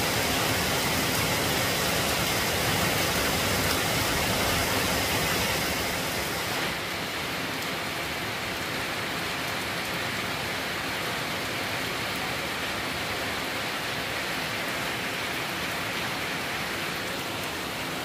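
Heavy rain pouring steadily onto a flooded paved yard, a dense even hiss of drops hitting standing water. About seven seconds in it turns a little quieter and duller.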